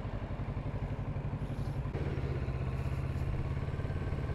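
Kawasaki Z650RS parallel-twin motorcycle engine running at low speed through a turn and pulling away. Its note changes abruptly about two seconds in and it gets slightly louder.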